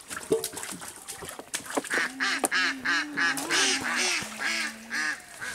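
Ducks quacking in a quick run of calls, about three or four a second, starting about two seconds in and stopping just before the end, after a few light knocks.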